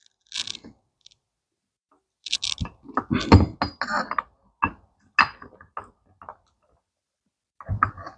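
Steel parts of a bearing puller clinking, knocking and scraping against each other and a differential as the puller is set in place: a short scrape, then a run of irregular clicks and knocks.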